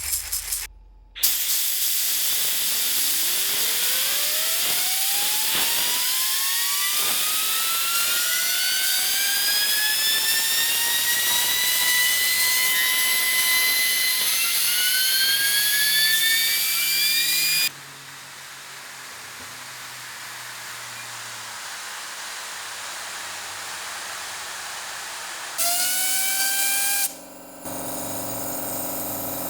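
A spinning fidget spinner's nested ball bearings whine over a steady hiss. Several high tones glide up in pitch and level off as it spins up. About 18 s in the sound cuts abruptly to a quieter, slowly rising hiss, and a brief spell of rising whines returns near the end.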